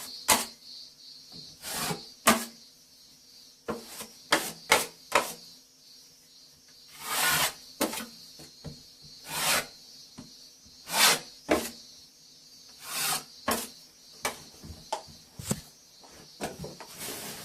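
A metal blade (hand scraper or trowel) scraping across a plastered bathroom wall in many short, irregular strokes, spreading or working plaster base coat compound.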